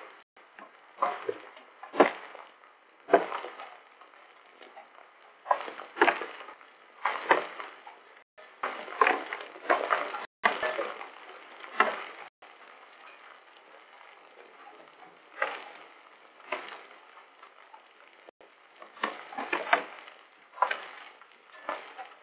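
Hailstones clattering against the security camera and the hard surfaces around it, in irregular crackly bursts about every one to two seconds, with a faint hiss between them.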